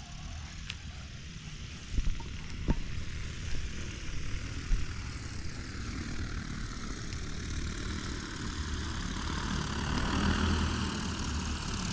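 DJI Agras T40 agricultural drone's rotors whirring as it flies in over the paddy, growing louder as it approaches. A few sharp clicks come near the start.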